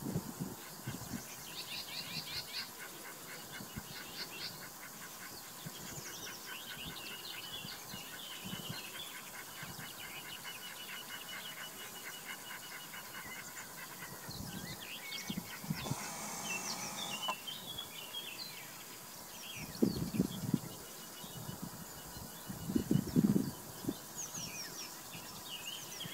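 Outdoor meadow ambience: small birds chirping and singing, with repeated insect-like trills. Twice near the end come loud low rumbles of wind buffeting the microphone.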